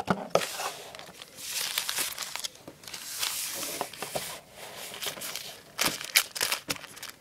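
Crinkling and tearing of plastic trading-card packaging being handled: a long rustle, then a few sharp crackles about six seconds in.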